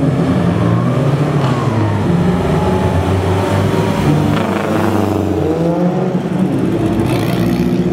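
Vintage sports-car engines revving as the cars accelerate away one after another, the engine note rising in pitch about a second in and again around five seconds in.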